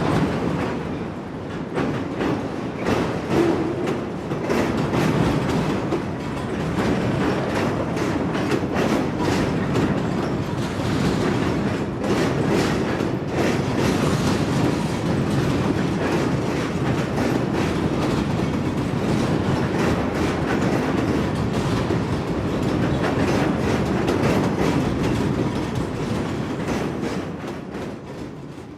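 Heavy loaded freight train rolling past, a steady rumble with the clickety-clack of wheels over rail joints; the sound fades out near the end.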